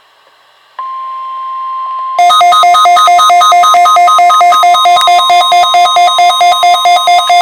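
NOAA Weather Radio alert tone for the required weekly test. Faint static gives way to a steady single beep about a second in, then at about two seconds a loud electronic tone pulses at about three times a second.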